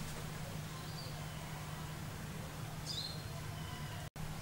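Steady outdoor background with a low hum, and two faint, short bird chirps, one about a second in and one about three seconds in.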